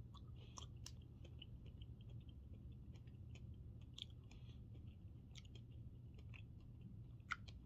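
Faint wet mouth sounds of a person chewing a soft, squishy piece of fruit, with scattered small clicks and one sharper click near the end.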